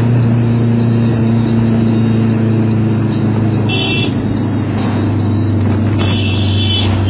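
A vehicle engine drones steadily under traffic noise, with two brief higher-pitched sounds, one about four seconds in and another near the end.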